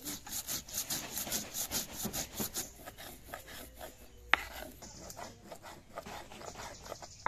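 Stone roller scraped back and forth over cumin seeds and chilli paste on a flat grinding stone (sil-batta), grinding spices into paste in quick rhythmic strokes, about four a second. The strokes grow softer after a sharp click a little past the middle.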